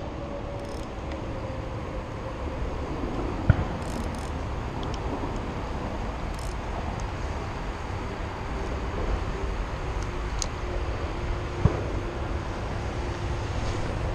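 Steady rumble of distant road traffic, with a faint engine tone sinking slowly in pitch, and two sharp knocks, about three and a half seconds in and again about twelve seconds in.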